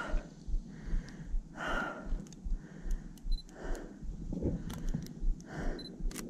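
A hiker's heavy breathing from the exertion of scrambling over rocks, a loud breath about every two seconds. Light clicks and taps from handling the camera come between the breaths.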